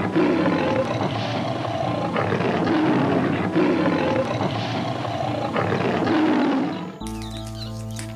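A big cat calling in a series of rough, noisy swells about once a second. About seven seconds in, it cuts abruptly to a music track.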